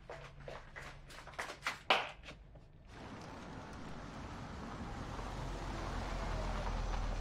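Footsteps and small knocks in a room, then a car's engine and tyre noise on a street, rising steadily as it approaches.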